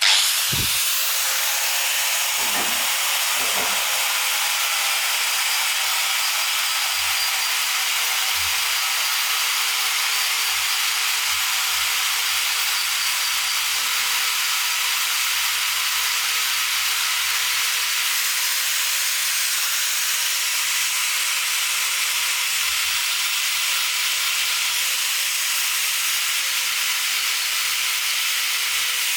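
Compressed air hissing loudly and steadily from a nozzle, starting abruptly and running without a break, with a faint wavering tone underneath.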